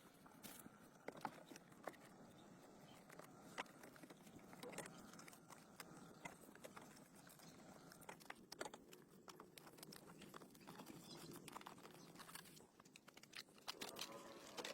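Faint, scattered light clicks and taps at an irregular pace over quiet room tone.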